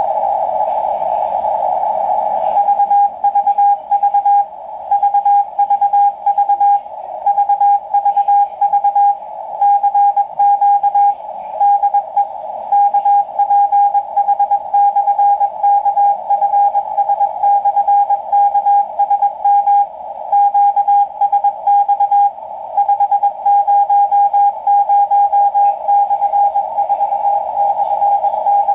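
Morse code (CW) from the Point Reyes coast stations KPH, KFS and KSM on an Icom IC-R8500 shortwave receiver. A single steady tone is keyed on and off over a narrow band of static hiss, with the keying starting about two and a half seconds in. It is the stations' marker, VVV VVV CQ DE KPH/KFS/KSM, a call to all stations.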